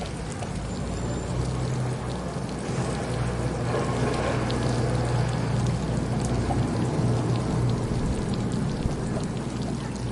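City water fountain splashing steadily, with a low steady hum underneath.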